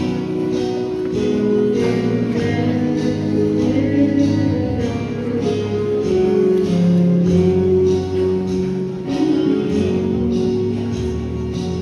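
Live band music with guitar and a steady beat, with a girls' vocal group singing.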